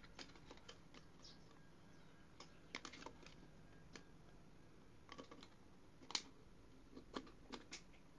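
Soft, scattered clicks and crackles of a thin plastic drink bottle being handled while a rubber band is threaded through it, the sharpest click about six seconds in.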